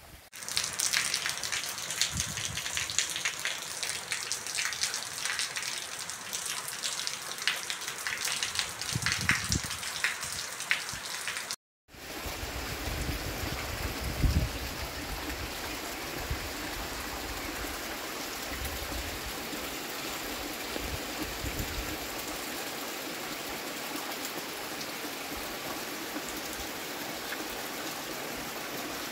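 Heavy rain falling, with many close drop hits. It cuts out briefly about twelve seconds in, then comes back as a steadier, even downpour.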